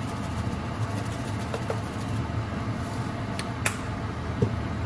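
Steady low mechanical hum with a hiss over it, like a kitchen fan or appliance running, with a couple of sharp clicks a little past the middle and a short knock near the end.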